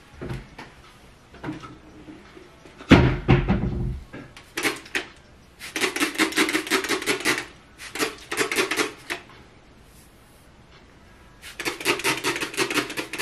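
Plastic trigger spray bottle spritzing water onto hair in three runs of quick squeezes, each a rapid string of hissing sprays. A loud thump and rustle comes about three seconds in.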